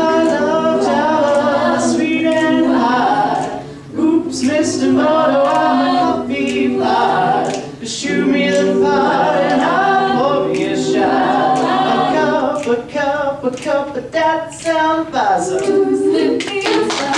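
Mixed-voice a cappella ensemble singing close harmony into handheld microphones, with brief breaks between phrases about four and eight seconds in.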